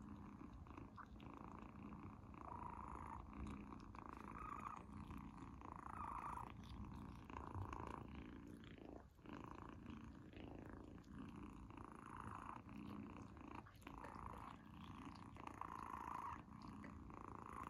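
A tabby-and-white kitten purring, faint and continuous, swelling and fading about every second or two.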